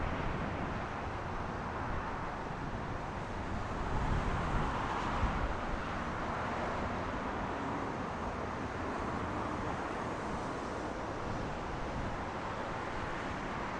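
Distant, steady jet engine noise from an Airbus A330-203 with General Electric CF6 engines, rolling out on the runway after landing.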